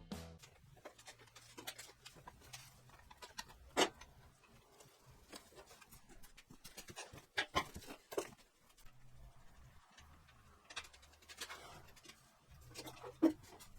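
Scattered light clicks and knocks of hand tools and parts being handled while a motorcycle is stripped down, with a sharper knock about four seconds in and a few more near the middle and end.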